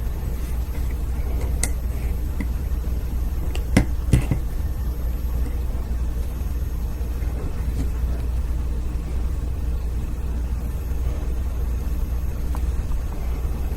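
A few sharp little clicks of small steel knife parts being handled during disassembly: two close together about four seconds in, one earlier and a faint one later. A steady low hum runs underneath.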